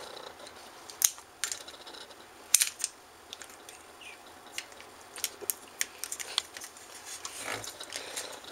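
Irregular sharp clicks and small rattles of hard plastic parts of an Xbox 360 controller being handled and pulled apart, the two loudest about one and two and a half seconds in.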